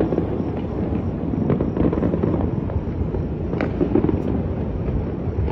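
Many New Year fireworks and firecrackers going off at once: a continuous low rumble of blasts, with several sharper cracks standing out, the clearest about three and a half seconds in.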